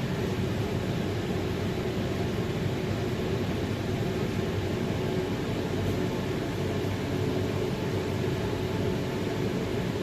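Steady low rumbling noise with a faint constant hum and no shots.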